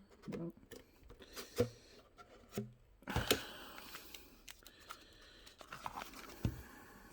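Packaging of a tool set being handled and opened by hand: rustling and scraping with a few light clicks and knocks, the loudest rustle about three seconds in.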